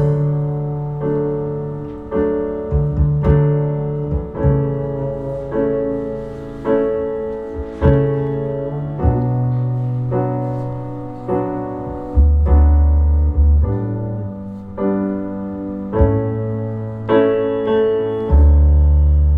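Instrumental piano interlude of a pop ballad, with struck chords ringing and fading over low bass notes, played back over an Alcons Audio CRMS mkII three-way cinema reference monitor system.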